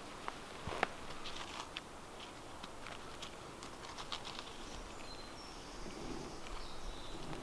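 Scattered light clicks and crackles over a steady outdoor hiss, with a brief high, thin whistle about five seconds in.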